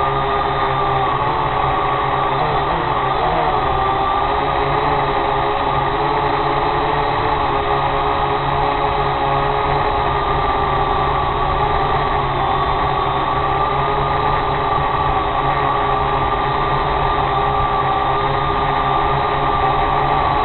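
Electric motors and propellers of a drone, recorded by its onboard camera: a steady whine of several tones that wavers briefly about three seconds in as the motors adjust speed.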